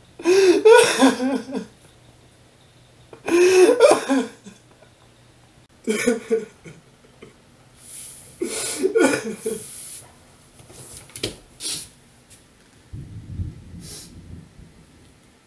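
A young man crying hard without words: four loud wailing sobs a couple of seconds apart, followed by shorter, fainter gasps and sobs. Near the end comes a low muffled rumble of movement.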